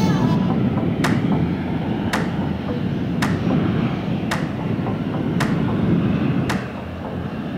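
Boeing 737 business jet's CFM56 turbofan engines running at taxi power, a steady low rumble. Sharp clicks come through it about once a second.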